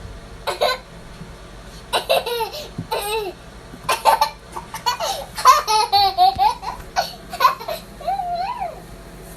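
A toddler laughing in repeated short bursts of high-pitched giggles with short pauses between them.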